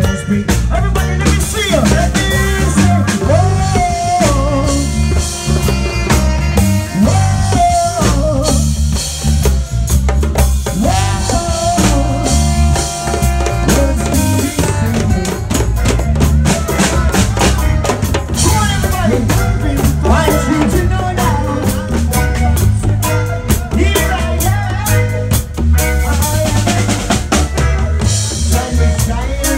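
Live reggae band playing, with a drum kit beating steadily and rimshots on the snare. A saxophone and trombone play a melody line of held notes over keyboard.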